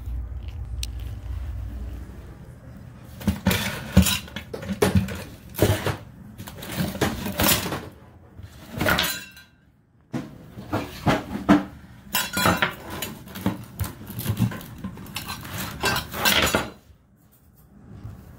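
Hard objects clinking and clattering, a run of sharp irregular knocks that starts about three seconds in and goes on for some thirteen seconds, with a short break about halfway. A low steady rumble comes before them.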